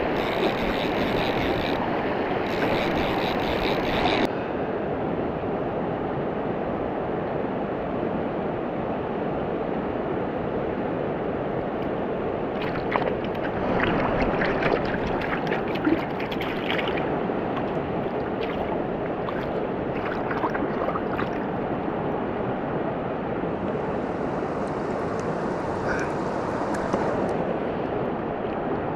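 Steady rush of river current running over stones and rocks. Around the middle there are a few brief splashes and knocks as a rainbow trout is brought into a landing net in the shallows.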